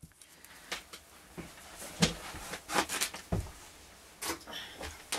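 Scattered light clicks and taps of small items being handled at a worktable, about one every second.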